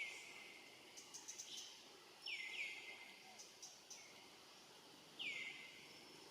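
Short high animal calls, each falling in pitch, coming singly or in pairs about every two and a half seconds, with faint ticks in between.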